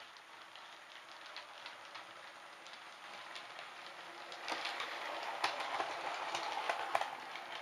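Model railway locomotive running along the track, its wheels clicking over the rail joints with a light rattle. It grows louder as it comes close, loudest with sharp clicks from about four and a half to seven seconds in, then eases off.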